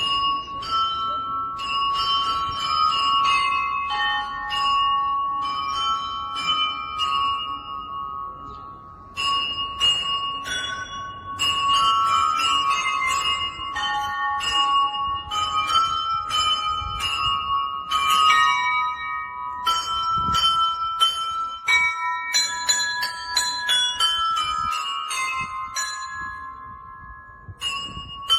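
Church bells ringing a peal: several bells of different pitches struck many times a second in a quick, irregular pattern, each stroke ringing on under the next.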